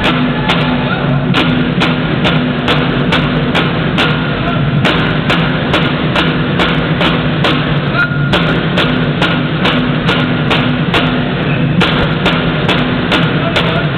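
Alaska Native frame drums (thin skin drums struck with a wand) beating a steady rhythm of about two to three strikes a second, under a group of voices singing a chant.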